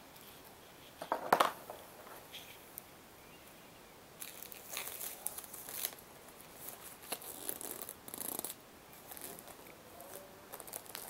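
Clear plastic packaging and a paper sheet crinkling and rustling as fingers handle them. The loudest burst comes about a second in, followed by scattered crackly rustles.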